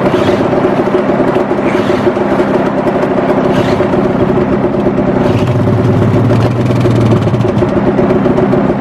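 Two-stroke snowmobile engine idling steadily just after a cold start by pull cord. A deeper note joins about five seconds in.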